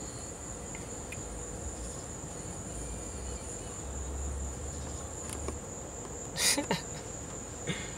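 Crickets chirping in a steady, continuous high trill. A short breathy sound about six and a half seconds in is the loudest moment.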